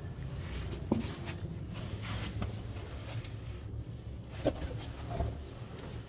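Footsteps and scuffs on a cave floor with camera-handling noise: a low rumble under a few scattered sharp knocks, the loudest about a second in.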